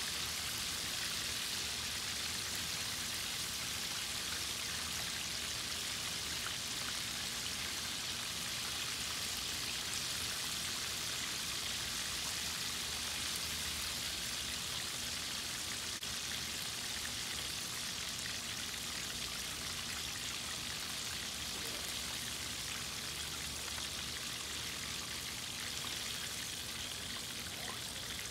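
Chicken drumsticks deep-frying in a wok of hot oil, giving a steady sizzle.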